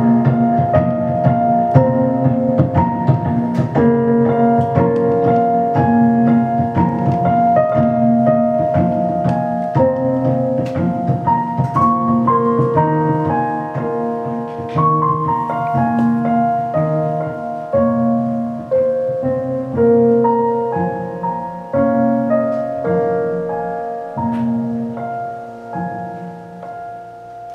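Instrumental piano music played live with electronics: a repeating pattern of piano notes layered over sustained, looped tones. It gradually gets quieter over the last several seconds.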